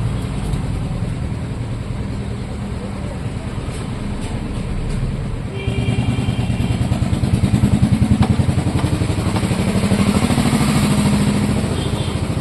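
Royal Enfield motorcycle engine running after its starter one-way clutch and clutch plate were replaced; it gets louder about halfway in, with a fast, even beat.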